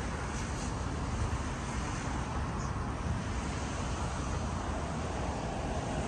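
Steady outdoor background noise: a low rumble with a hiss above it, even throughout with no distinct events.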